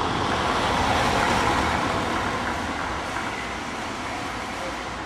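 Street traffic noise: a motor vehicle passing in the street, its rushing sound swelling about a second in and then slowly fading.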